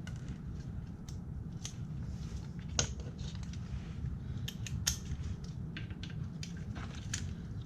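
Scattered light clicks and metallic taps of hand tools and parts being handled during an ATV oil change, two of them sharper than the rest, over a steady low rumble.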